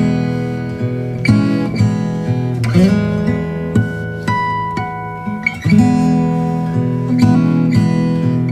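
Background music: an acoustic guitar strumming chords and picking single notes at a steady pace.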